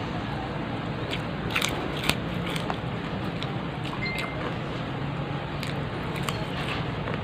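A person chewing a mouthful of food and eating by hand, with scattered sharp clicks over a steady background hiss.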